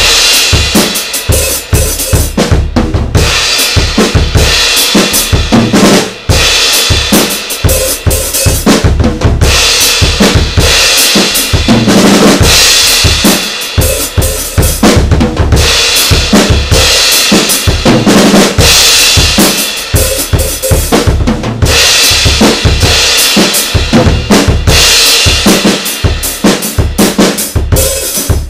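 Drum kit played continuously and loudly, a steady run of hits with a bright ringing wash above them, picked up close by a Xiaomi Yi action camera's built-in microphone.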